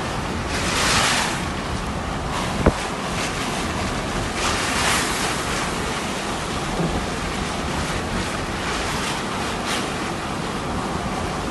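Rushing floodwater, a steady loud rush that swells briefly twice, with wind buffeting the microphone. A single sharp knock about two and a half seconds in.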